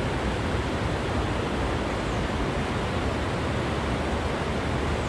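Steady wind rushing over the microphone, a rough, even roar heaviest in the low end, with no other sound standing out.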